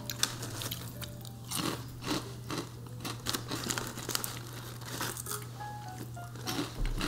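Crinkling of a plastic snack wrapper and crunching of crisp fried seaweed tempura crackers, a string of short sharp crackles, over quiet background music.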